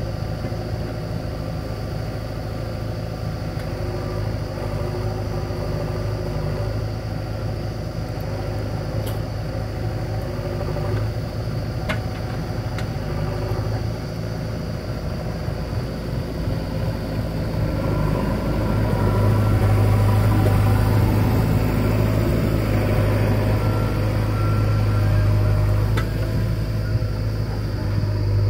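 Diesel engines of a JCB 3DX backhoe loader and a tractor running steadily. The engine sound grows louder about two-thirds of the way through, with a few faint clicks.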